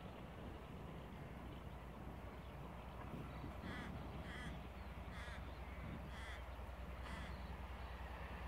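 A crow cawing about five times in the middle, the calls roughly a second apart, over the faint low rumble of a distant diesel locomotive approaching with passenger carriages, slowly growing louder.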